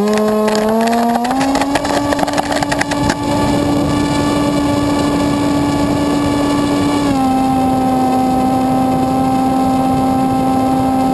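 Electric motor and propeller of a Dynam Hawk Sky RC airplane, heard from on board: a steady high whine that has just spun up, rises a step about a second in, then drops slightly in pitch about seven seconds in as the throttle eases. A brief rattle runs through the first few seconds.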